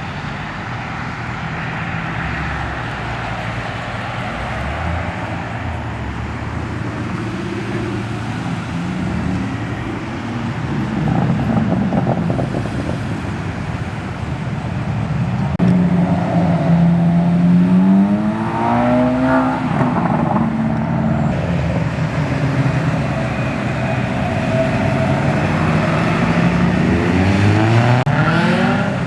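Car engines as cars drive out of a car meet, running at low revs. About halfway through, one accelerates with a rising engine note, and another starts to rise near the end.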